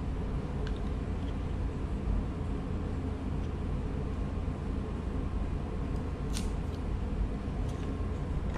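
Steady low background hum with a few light clicks of a chisel paring a notch in a thin wooden guitar brace; one sharper click comes about six seconds in.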